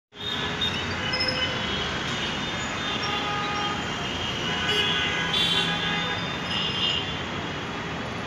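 Heavy city street traffic heard from above: a steady din of engines and tyres from a jammed road, with vehicle horns tooting several times.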